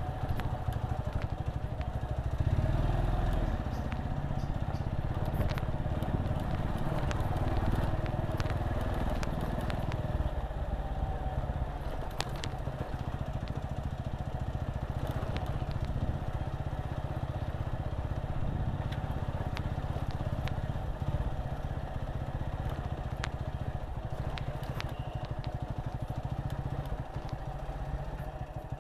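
Small motorcycle engine running steadily while riding slowly, with occasional clicks and rattles.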